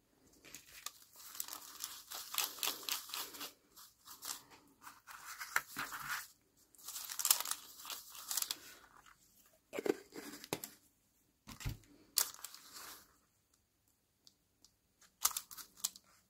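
A fan brush and hands working over paper to spatter gold paint: scratchy rustling in several stretches of a second or more, with a few small clicks and taps.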